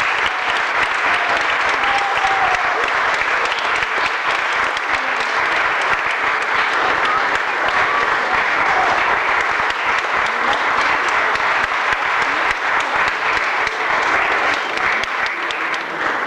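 Theatre audience applauding: many hands clapping in a dense, steady wash.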